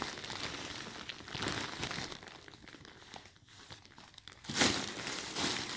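Packaging being handled and unwrapped by hand, crinkling and rustling, quieter for a moment in the middle, then a louder burst of crinkling near the end.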